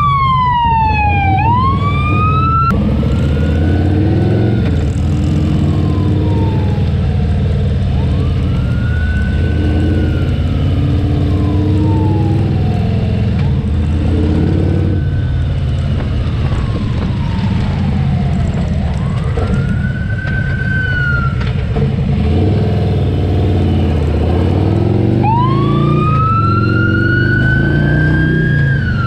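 Wailing emergency siren rising and falling slowly in pitch, over the steady running of a motorcycle engine. The engine climbs in pitch near the end.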